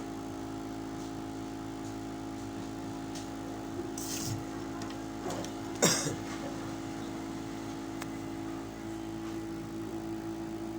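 A steady electrical or motor hum with several fixed tones, and two short clicks or taps in the middle, the second one sharp.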